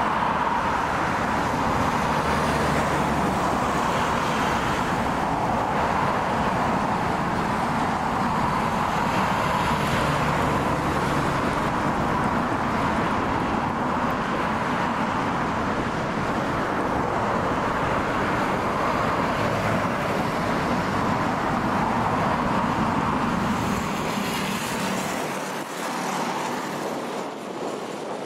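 Jet airliner engines running: a loud, steady rushing noise with a band of pitch in the middle of the range. Near the end the low rumble drops away.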